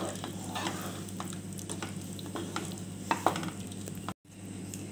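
Spatula stirring and scraping thick paneer masala gravy around a non-stick wok, with a soft simmering sizzle under a steady low hum. A louder scrape comes a little after three seconds in, and the sound cuts out for an instant near the end.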